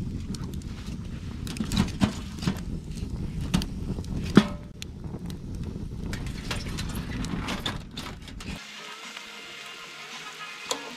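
Wood fire crackling and popping in an open tent stove over a low rumble. Near the end the sound changes abruptly to sliced reindeer meat sizzling in a frying pan as it is stirred.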